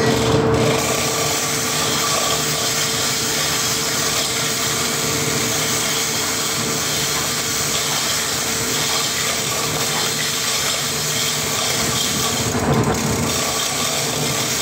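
Steady, loud hissing machine noise of dry-dock work, running without a break, with a brief dip in its hiss about three-quarters of the way through.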